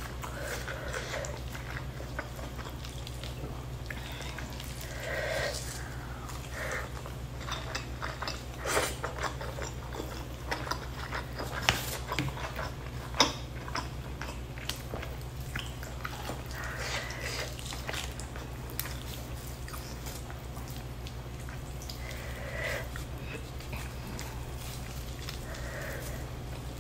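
Close-miked chewing and lip-smacking of a person eating chicken with her fingers: many small wet clicks and smacks, over a steady low hum.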